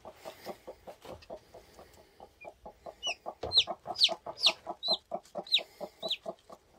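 Broody hen clucking softly and rapidly, about seven low clucks a second. From about three seconds in, a newly hatched chick peeps over it, about seven high calls, each sliding down in pitch.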